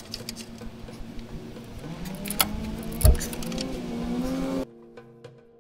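Ratchet strap being cranked tight to compress a polyurethane radius arm bushing: a few sharp clicks from the ratchet, and a creak that slowly rises in pitch as the strap takes up tension. The sound cuts off suddenly near the end.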